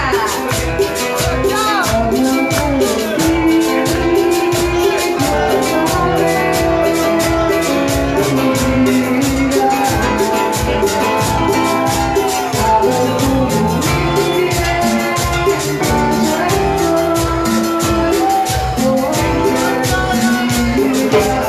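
A cumbia band playing live, with a steady driving beat and a melody line over it.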